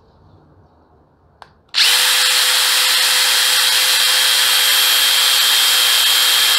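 DeWalt DCF850 Atomic brushless impact driver switched on and running free at top speed, about 3,600 RPM with no load so it does not hammer: a loud, steady whine that starts suddenly a little under two seconds in, just after a faint click.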